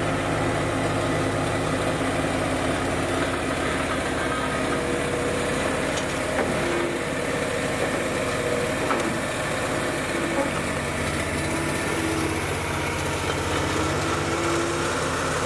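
New Holland skid steer's diesel engine running steadily as the machine drives up to a pallet of bricks and lifts it on its pallet forks.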